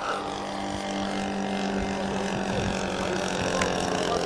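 Engine and propeller of a Thunder Tiger radio-controlled model warplane in flight overhead, giving a steady drone at an even pitch.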